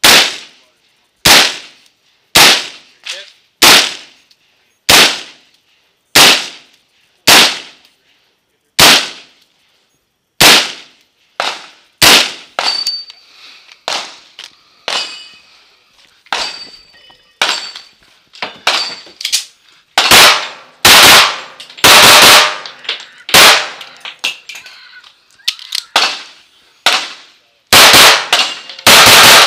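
An AR-style rifle fired shot after shot at a steady pace, about one shot every 1.2 seconds, then some lighter cracks with brief pings from steel targets and a fast, loud string of rifle fire. Near the end comes a rapid string of shots from a Kimber 1911 .45 ACP pistol.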